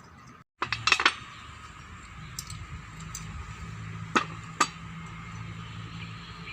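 Metal tools and small engine parts clinking against each other during brush cutter engine work: a quick cluster of sharp clinks about a second in, then single clinks spaced a second or so apart, over a steady low hum.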